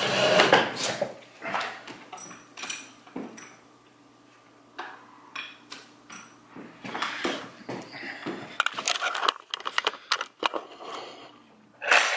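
Handling noise as a camera is picked up and set down again on a wooden table: scattered knocks, clicks and clatter of dishes. It comes in two bouts with a quieter pause in between.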